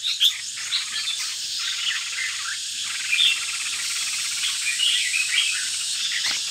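Caged red-whiskered bulbul giving short, scattered chirps and song phrases over a steady high-pitched buzz. A brief thump comes near the end.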